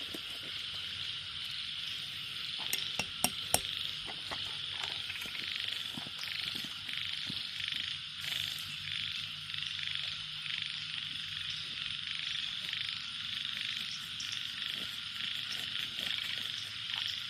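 A chorus of frogs calling, a dense pulsing croak repeated over and over. A few sharp clicks stand out about three seconds in.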